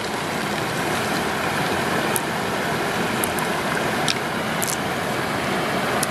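Steady rushing of flowing water, with a few light clicks as pearls knock against the mussel shell and each other while being scooped up.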